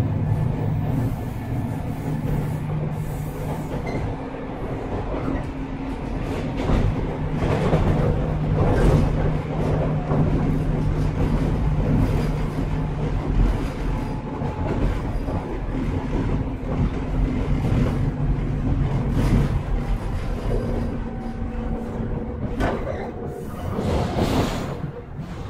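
JR 103 series 1500 subseries electric train running: a steady rumble of wheels on rail with a motor hum that comes and goes, and a few clacks over rail joints, mostly near the end.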